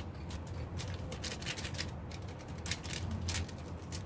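Irregular light clicks and rustles of ingredients being handled at a cooking pot, over a steady low hum.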